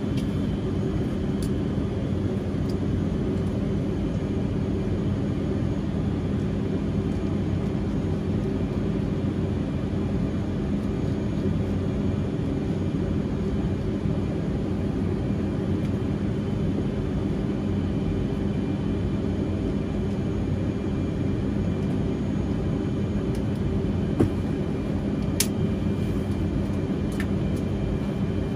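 Steady low drone of an aircraft engine running, holding an even pitch, with a couple of faint clicks near the end.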